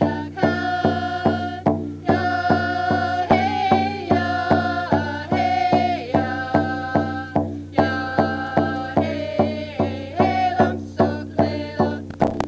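First Nations ceremonial song: a group of voices singing held notes over a steady hand-drum beat of about two and a half strokes a second.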